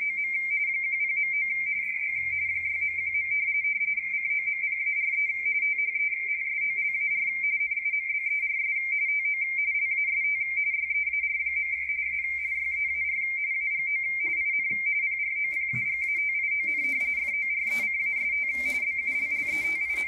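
Baudot RTTY signal from W1AW on 80 meters, heard through the Yaesu FTdx10's speaker. It is a steady warble of two tones 170 Hz apart, switching rapidly between mark and space as the bulletin text is sent.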